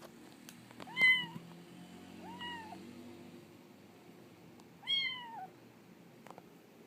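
Domestic cat meowing three times, each meow rising then falling in pitch; the first, about a second in, is the loudest and the second is faint.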